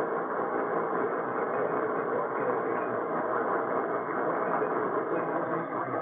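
Steady radio static: an even hiss from a radio's speaker while it is tuned to a weak or empty signal.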